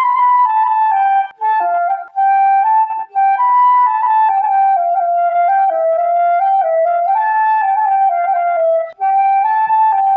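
Background music: a solo flute playing a slow melody of held notes that step up and down, with a few brief breaks between phrases.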